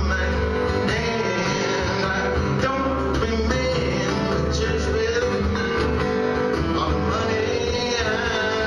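Two acoustic guitars played live, strummed and picked together in a country-rock song, with a man singing.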